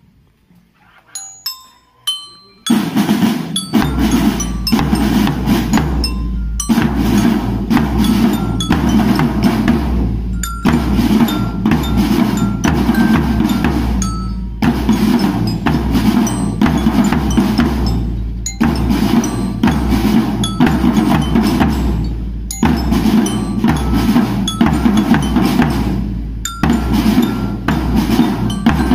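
School marching drum band of bass drums, marching drums and bell lyres (marching glockenspiels). A few single high ringing notes sound first, then about three seconds in the whole band starts playing, in phrases with a short break about every four seconds.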